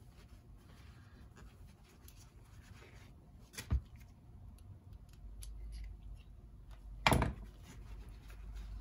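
Small workbench handling sounds: faint scraping and rubbing of a seal pick and rag on rear-shock parts as old seals are picked off and cleaned. Two sharp knocks stand out, about three and a half seconds apart, the second louder.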